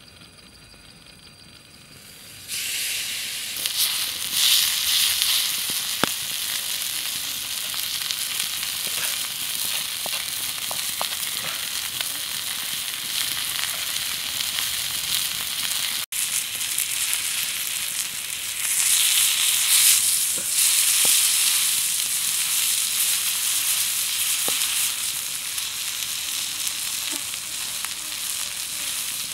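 A whole fish rubbed with chili paste sizzling on a flat stone slab heated over a wood fire, a loud steady hiss that starts suddenly about two and a half seconds in as the fish meets the hot stone, with a few small pops.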